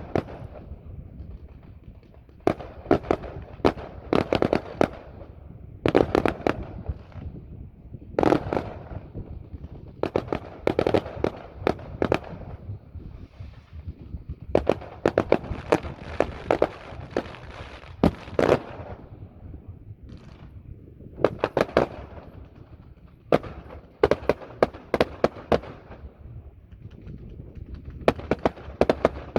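Fireworks display: clusters of rapid sharp pops and bangs recurring every second or two, with short lulls between them.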